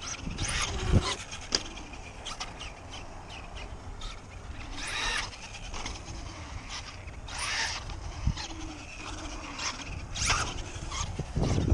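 A Traxxas Stampede 2WD RC truck with a brushless motor driving on concrete: its motor whines up in short bursts of throttle every couple of seconds along with tyre noise, and there is a sharp knock about a second in.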